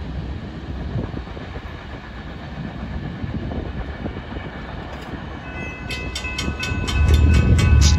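A Florida East Coast Railway freight train rumbles steadily as it moves away. About five and a half seconds in, the grade-crossing bell starts a rapid, regular dinging as the gates lift. Near the end a much louder low rumble comes in.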